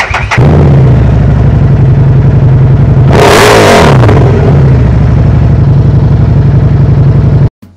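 Harley-Davidson Street 750's V-twin engine running through its stock exhaust, a steady low idle with one brief rev about three seconds in. The sound cuts off suddenly near the end.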